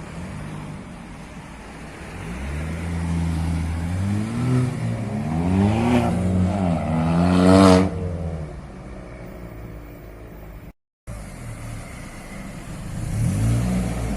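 Car engine revving: a low idle, then several rises and falls in pitch climbing to a loud peak about eight seconds in before dropping back to idle. After a brief break, it revs again briefly near the end.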